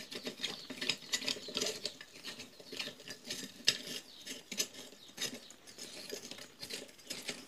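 Light, irregular clicks and scrapes of hands handling the metal housing and bolts of an Anauger vibratory pump as it is put back together.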